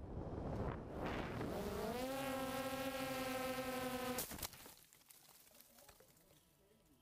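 DJI Phantom 2 quadcopter falling out of control. Wind rushes past, then the whine of its motors and propellers rises in pitch and holds steady. About four seconds in, a sharp impact cuts the whine off as the drone crashes.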